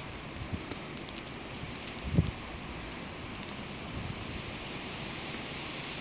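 Outdoor ambience in falling snow: a steady hiss with scattered faint ticks, and a brief low thump about two seconds in.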